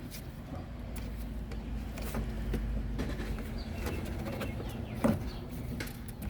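Light clicks and knocks of plastic parts and rubber hose being handled while a windshield washer pump is fitted, over a low steady hum. A brief falling squeak about five seconds in.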